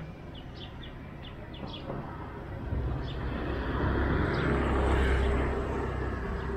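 Engine noise of a passing vehicle, a low rumble that swells to its loudest about five seconds in and then fades, with a few short bird chirps in the first two seconds.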